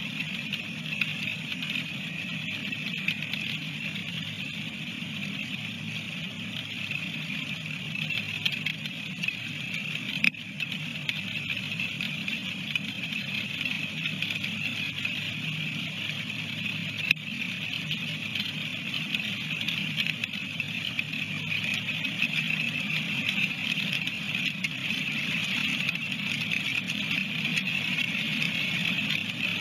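Steady rushing of a flowing river picked up by an outdoor webcam microphone, a low rumble under a hiss, growing a little louder toward the end, with two faint clicks about ten and seventeen seconds in.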